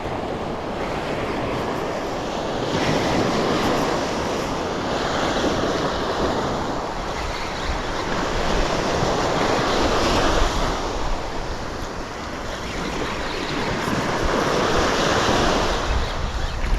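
Surf breaking and washing up the beach, swelling and easing every few seconds, with wind buffeting the microphone.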